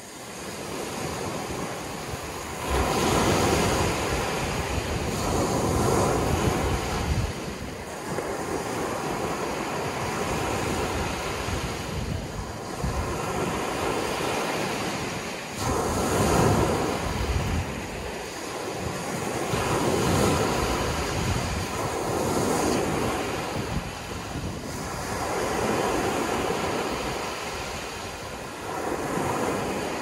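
Ocean surf: waves surging and washing in as a continuous rushing noise that swells and eases every few seconds.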